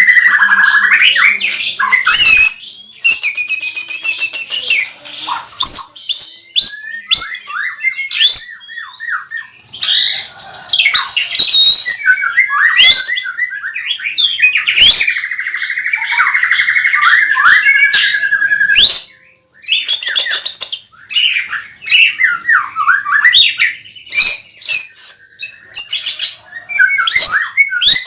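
White-rumped shama (murai batu) singing a loud, varied song of whistled glides, sharp clicking 'cekrek' chatter and a long rapid trill, broken by short pauses. It is a vigorous, full song from a bird recovered from a cough.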